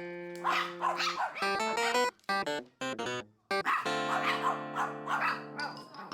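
A small dog barking in short, repeated yaps over light plucked-string background music.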